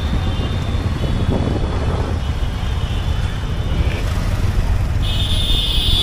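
Steady low rumble of road traffic heard from a moving vehicle, with engines and road noise. Near the end a high-pitched vehicle horn sounds for about a second.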